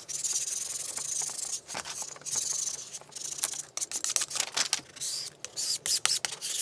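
Metal painter's scraper dragged in repeated strokes over the paper liner of an adhesive transfer sheet on a glass plate, a dry scratchy rubbing, pressing the adhesive down to push out air bubbles. The strokes run fairly continuously at first, then become shorter and choppier with small clicks and taps from about three seconds in.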